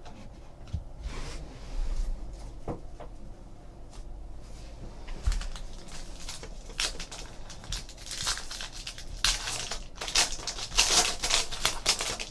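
Trading-card pack wrappers being torn open and crinkled, with light clicks from cards being handled; the crinkling is loudest in the second half.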